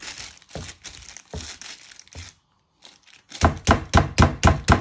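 A plastic food bag crinkling as it is handled. About three and a half seconds in, a meat mallet starts pounding a chicken breast through the bag on a wooden board: quick, even strikes, about five a second.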